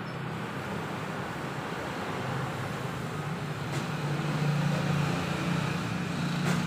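Steady low motor rumble that grows louder about four seconds in, with a faint click near the middle and another near the end.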